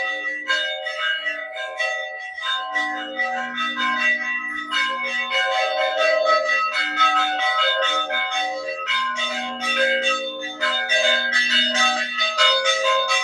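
Church bells rung by hand in a fast, continuous peal: several strokes a second, with bells of different pitches overlapping and ringing on. The peal announces the start of the village fiesta.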